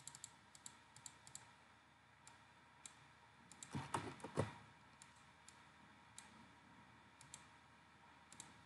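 Faint computer mouse clicks and keyboard key taps, scattered and irregular, with a short louder run of taps about four seconds in.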